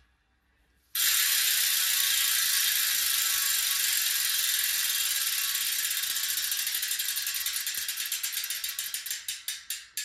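Hope Pro 4 (4 pawls, 44 engagement points) and Industry Nine 101 (6 pawls, 90 engagement points) bike hubs freewheeling together, their pawls clicking in a fast, high-pitched buzz. It starts suddenly about a second in as the wheels are spun, then slows into distinct clicks near the end as the wheels coast down.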